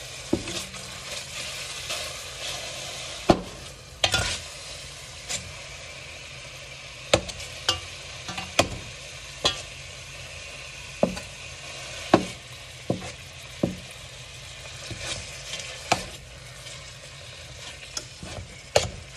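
Ground beef sizzling in hot oil in a stainless steel pot as a spoon breaks it up, with irregular sharp knocks and scrapes of the spoon against the pot over the steady frying.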